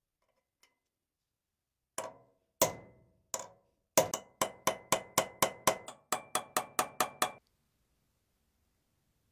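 Hammer tapping on a metal part: three separate blows, then a quick run of about fourteen even taps, about four a second, each with a short metallic ring.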